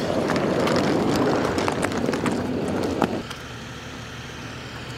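A vehicle's rough, fairly loud running noise with a few knocks, dropping suddenly about three seconds in to a quieter, steady hum.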